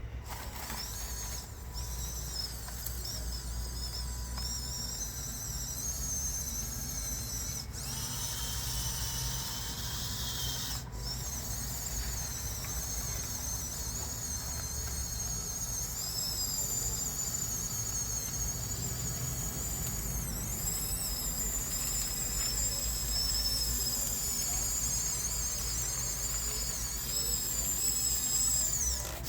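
Electric drive motors and gearboxes of a Huina 1554 RC bulldozer whining as it pushes wet sand. The high-pitched whine wavers up and down with the load.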